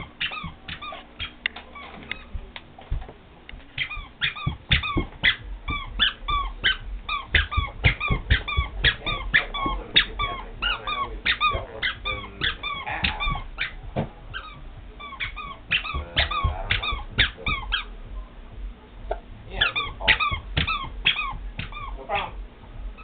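A toddler's squeaker shoe chirping with each step as the child walks: a rapid run of short, high squeaks, about two or three a second, with soft footfall thuds beneath and brief pauses about two seconds in and again near the end.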